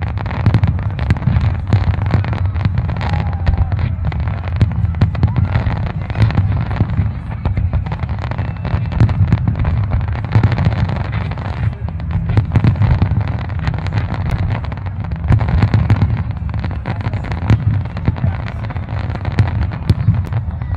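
A dense, continuous barrage of fireworks: aerial shells bursting and crackling, many bangs a second over a steady low rumble.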